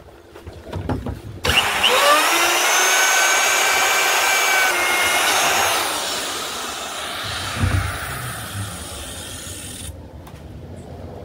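Handheld electric router switched on about a second and a half in, its whine rising as the motor spins up, then running with a high steady whine that gives way to a fading rush and dies away near the end.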